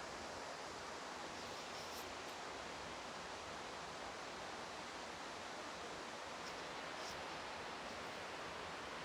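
Steady hiss of heavy rain pouring down on the roof of a large greenhouse dome, heard from inside.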